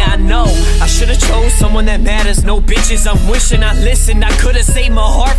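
Hip hop music: rapped vocals over a steady beat.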